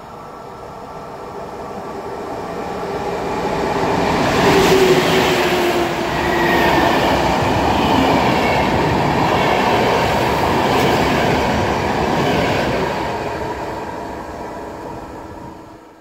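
Locomotive-hauled PKP Intercity passenger train passing along the platform, its wheels running on the rails. The noise builds as the train approaches and is loudest about four seconds in as the front goes by. It stays loud while the coaches pass, then fades and cuts off suddenly at the end.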